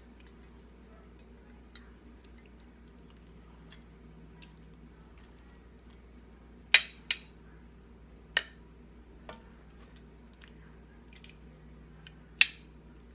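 A serving spoon clinking a few times against a pot and plate while curry chicken is dished up. The clicks are short and sharp, two close together past the middle and one near the end, over a low steady hum.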